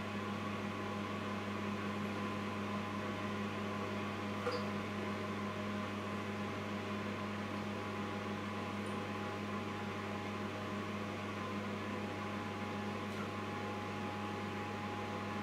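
Steady low electrical hum, as from a running kitchen appliance, with a faint clink about four and a half seconds in.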